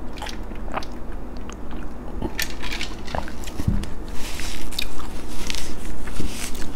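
A person chewing beef tapa close to the microphone, with many small wet mouth clicks that get busier in the second half.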